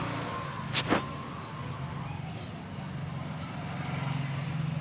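Engine running steadily at a low, even pitch, with one sharp click or knock just under a second in.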